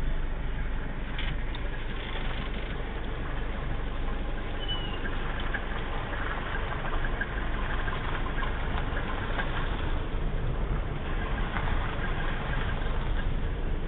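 Mercedes-Benz car's engine running steadily with tyre and road noise as it drives along a rough lane, heard from inside the cabin.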